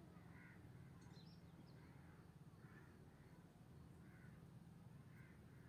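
Near silence: faint low room hum with faint distant bird calls, about one every second.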